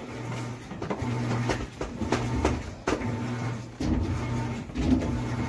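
A screwdriver and the metal bottom access cover of an electric water heater being worked, with scattered clicks and scrapes over a steady low hum.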